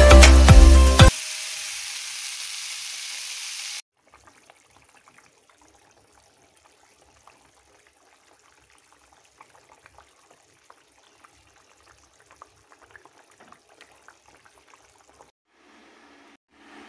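Background music that stops about a second in, then a steady frying sizzle from a wok of potatoes and chicken. After a few seconds it gives way to faint, scattered pops and crackles of a curry gravy simmering in the pot.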